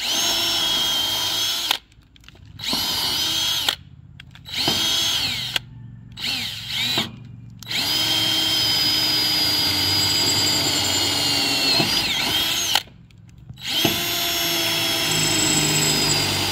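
DeWalt cordless drill/driver running in about six bursts: several short ones of a second or so, then a long run of about five seconds and another near the end, the whine swinging in pitch as each starts. It is backing screws out of a treated-pine board on the high-tunnel frame.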